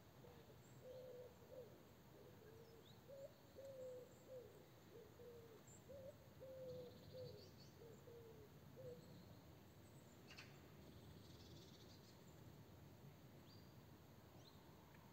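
Faint bird calls: a series of short, low cooing notes, about two a second, lasting most of the first nine seconds, with a few faint high chirps above and a single click about ten seconds in.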